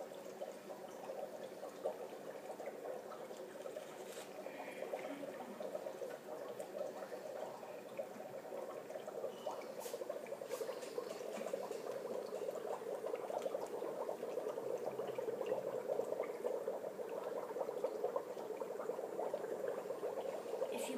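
Dry ice bubbling vigorously in water under a growing soap bubble, a dense, steady gurgling that gets louder about halfway through.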